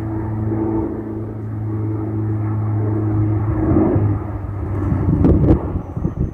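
Steady low drone of an aircraft's engines climbing out after takeoff, growing louder, with two sharp knocks about five seconds in.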